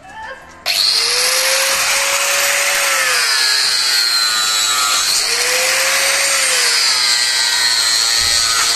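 Bosch PWS 750-115 750 W, 115 mm angle grinder with a metal-cutting disc cutting through a strip of wood; the motor noise comes in suddenly less than a second in and runs steadily. Its whine sags in pitch twice as the disc bites into the wood, which the thin metal-cutting disc burns through rather than cuts cleanly.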